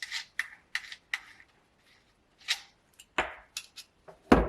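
Small metal tools and parts being handled and set down: a quick series of short clicks and clinks, with a louder knock near the end.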